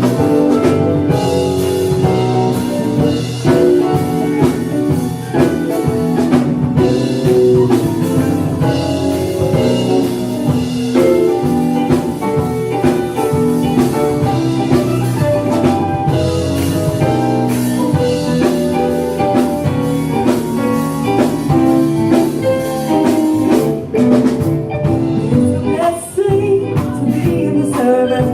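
A gospel song performed live: singers over a band with drums and guitar, with a steady beat.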